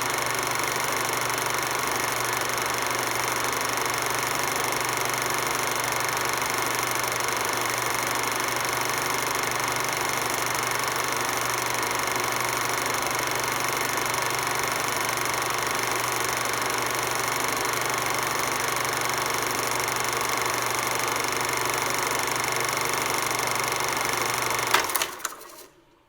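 Film projector running steadily, a continuous mechanical clatter over a low hum. Near the end it stops with a sharp click and the sound dies away within about a second.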